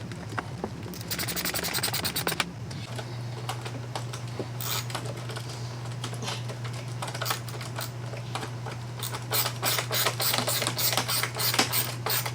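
Screws being driven by hand with a screwdriver into a metal drawer slide rail: a fast burst of clicking about a second in, scattered clicks, then a steadier run of about three clicks a second near the end, over a steady low hum.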